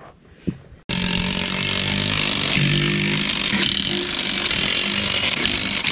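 DeWalt cordless impact wrench running on a truck wheel's lug nuts. It starts abruptly about a second in, and its pitch steps up and down as it works.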